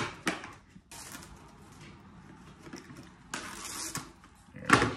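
Plastic wrap pulled off its roll in a cardboard box and torn across the box's cutter edge: clicks at the start, then hissing, crinkling rustles as the film comes free, and a thump near the end.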